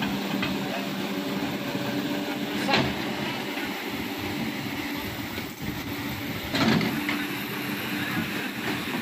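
Hydraulic excavator's diesel engine running steadily as its bucket digs through an earthen dam, with water rushing through the breach. Two louder knocks, about three and seven seconds in.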